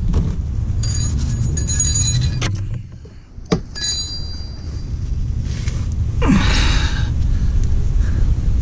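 Handling noise of hands working under a truck: rustling and scraping with a few light metallic clinks, a sharp click about three and a half seconds in, and a louder scrape about six seconds in, over a steady low rumble.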